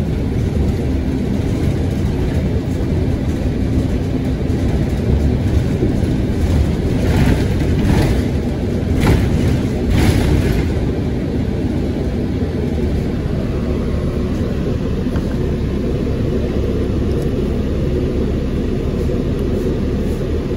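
Steady low rumble of a city transit bus running, engine and road noise heard from inside the passenger cabin, with a brief louder noisy swell about halfway through.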